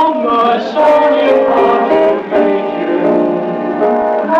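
Music: a melody of held notes moving from one note to the next every fraction of a second, with accompaniment.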